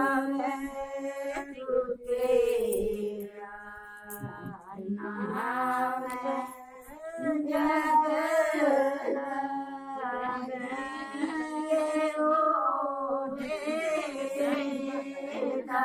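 Women's voices singing a slow, chant-like traditional wedding song in long held notes, unaccompanied, with short breaks between phrases.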